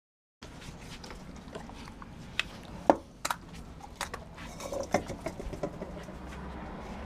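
Several dogs crowding a bowl and biting and tearing at a raw whole chicken, with an irregular run of sharp clicks and knocks, the loudest about three seconds in.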